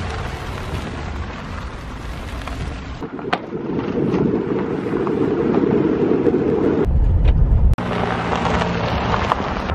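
An SUV towing a travel trailer driving past on a dirt and gravel road: steady tyre and engine noise in several short clips that change abruptly. There is a deep rumble about seven seconds in, then a steady engine hum with tyre noise after a sudden cut.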